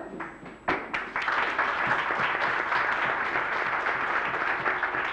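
A small audience applauding: a few separate claps in the first second, then steady clapping that carries on.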